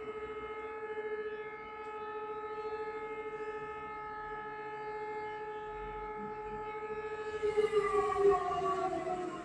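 Outdoor tornado warning siren holding one steady tone, then winding down with its pitch falling over the last couple of seconds.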